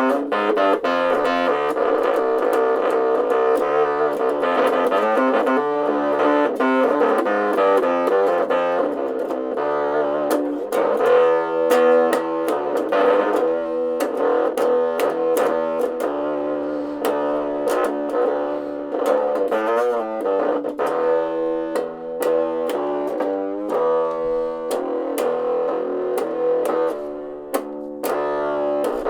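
Electric bass guitar played through a small Dean Markley practice amp turned up full, a continuous run of distorted riffing and plucked notes.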